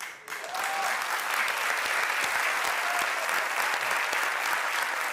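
Studio audience applauding, beginning a moment in and keeping up steadily.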